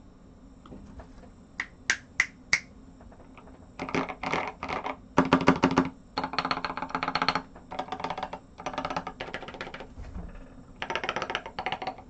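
Typing on a Pearl mechanical keyboard fitted with SA-profile Godspeed keycaps: four single keystrokes about two seconds in, then fast runs of typing in bursts with short pauses.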